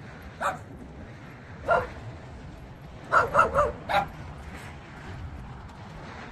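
A dog barking off and on in short, sharp yaps: a couple of single barks, then a quick run of four about three seconds in, and one more just after.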